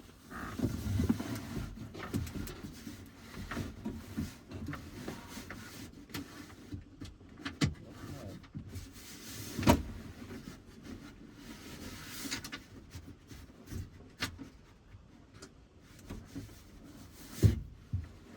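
Hands rummaging inside a pickup truck's door: rattling, clicking and knocking of plastic trim and metal while fishing for a socket and nut dropped down into the door. Two sharper knocks stand out, about ten seconds in and near the end.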